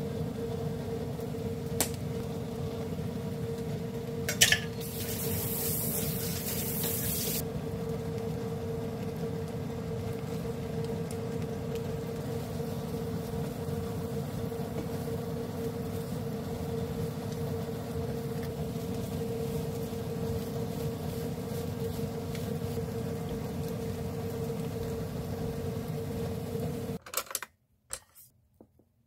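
Steady kitchen fan hum with a constant mid-pitched tone while fried rice is stir-fried in a wok on an induction cooktop. About four and a half seconds in, a sharp click is followed by a loud hiss lasting about three seconds. The hum cuts off suddenly near the end.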